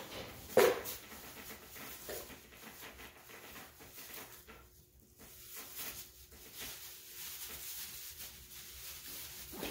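Goats and young goat kids moving about on straw bedding: irregular rustling of hay and light hoof steps, with one short, loud sound about half a second in. A faint steady hum sits underneath.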